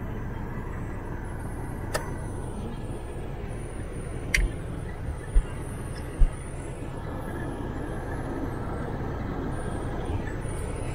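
Steady road and engine noise of a vehicle heard from inside the cabin, creeping along in traffic. A few sharp clicks and short low thumps break through, one of them with a brief ringing tone about four seconds in.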